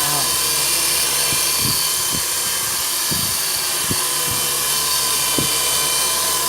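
WLtoys V912 radio-controlled helicopter's electric motor and rotor spinning up to speed in a test run, a steady high whine and whir that holds level throughout.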